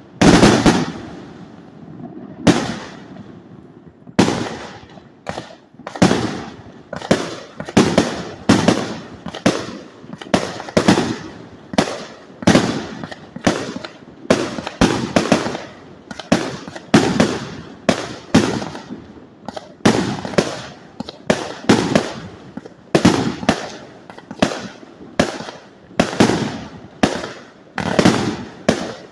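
A 450-shot fireworks display board firing: a long string of sharp bangs, one or two a second, each with a short fading tail.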